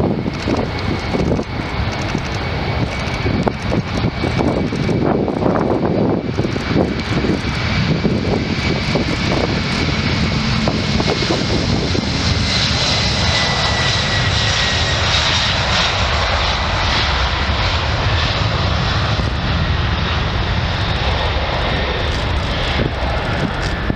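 Boeing 747-400 freighter's four jet engines at takeoff power as it accelerates past on its takeoff roll: a loud, steady roar with a high whine that drops slightly in pitch as the jet goes by.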